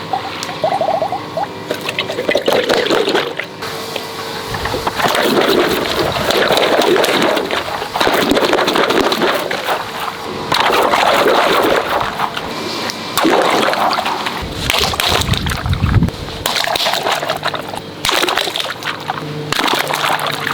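Water sloshing and splashing in shifting bursts, with scattered clicks and a deep rumble lasting about a second and a half around fifteen seconds in.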